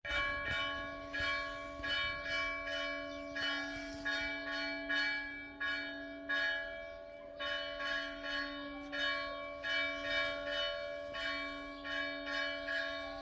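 Church bells ringing: a steady run of strikes at several pitches, about two a second, each leaving a long ringing hum. There is a brief lull about seven seconds in.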